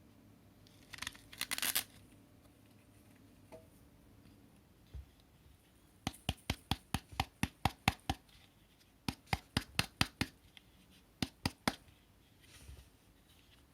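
Handling noise: a brief scratchy rustle about a second in, then three runs of sharp, evenly spaced clicks, about five a second, the longest around ten clicks.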